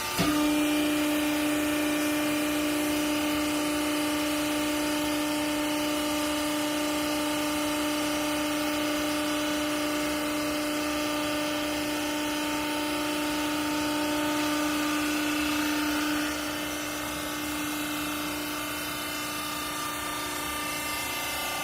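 A used clothing compress baler's hydraulic pump running under load with a steady hum, which starts just after the start and eases off about sixteen seconds in, leaving a quieter machine drone.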